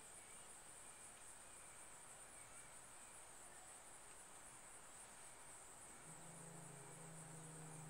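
Near silence: faint, steady, high-pitched insect chirring, with a faint low hum coming in about six seconds in.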